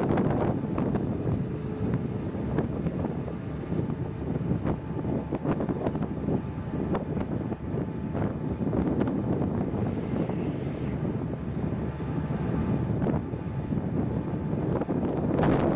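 Wind buffeting the microphone over the low rumble of a fire-rescue boat's engines as it motors away from the dock, throwing a wake.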